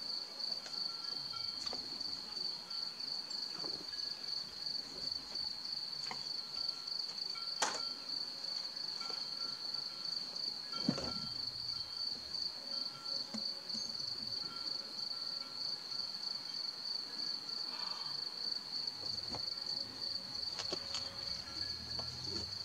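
Crickets chirping in a steady high trill that runs on without a break, with a couple of short clicks about 7 and 11 seconds in.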